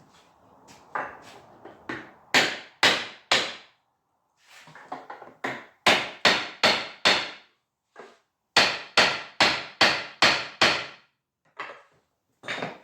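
Hammer blows on wood in runs of three to six, about two a second, with lighter taps between the runs: a chair's mortise-and-tenon joint being knocked apart.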